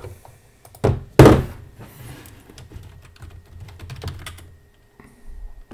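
Typing on a computer keyboard: a run of quick keystrokes that stops about four and a half seconds in. Two loud thumps about a second in are the loudest sounds.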